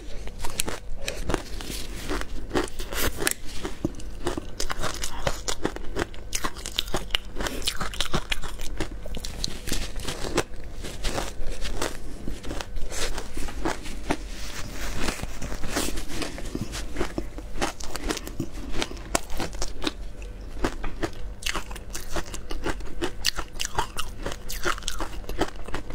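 Crunching and chewing of packed shaved ice coated in matcha powder, heard close on a clip-on microphone: a dense, irregular run of crisp crunches with no pause.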